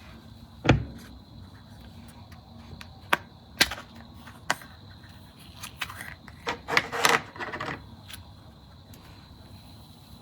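Slime being handled and squeezed, with sharp single pops about a second in, around three to three and a half seconds, and near four and a half seconds, then a run of crackling pops for about two seconds near the end. A faint steady high whine lies underneath.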